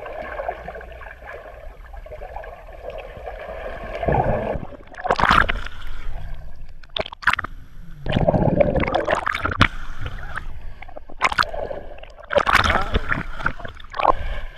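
Swimming-pool water heard through a submerged camera: a steady muffled wash for the first four seconds, then repeated splashing and gurgling sloshes as swimmers kick and move close by.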